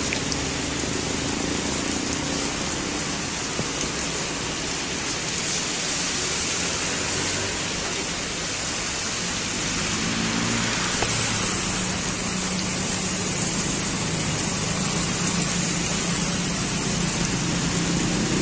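Heavy rain pouring down in a steady, dense hiss, with no letup.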